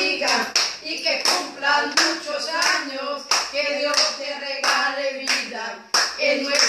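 A group of people clapping in a steady rhythm, about two claps a second, while voices sing along.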